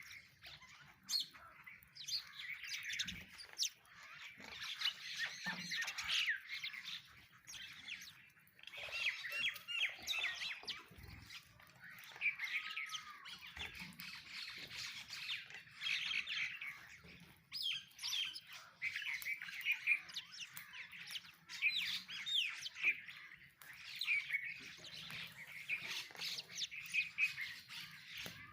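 A flock of sparrows chirping, many short calls overlapping in busy bouts a few seconds apart.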